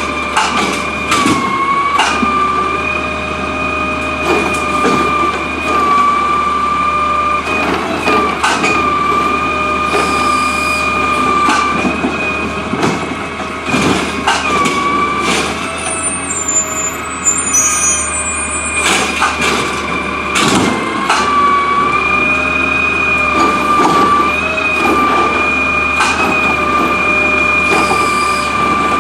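Autocar ACX garbage truck with a Heil Rapid Rail body running with the steady high-pitched whine it makes at idle, which wavers slightly in pitch, over a low engine hum. Short knocks and clatter come now and then.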